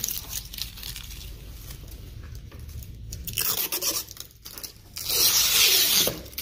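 Cheap plastic tape being peeled off a car's fibreglass-and-bondo nose panel, in two ripping pulls: one about three seconds in and a longer, louder one about five seconds in.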